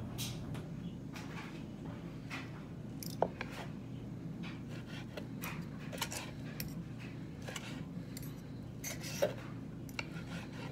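Kitchen knife slicing cooked meat, with light scraping and clicking of the blade against the plate or board and two sharper knocks, about three and nine seconds in, over a steady low hum.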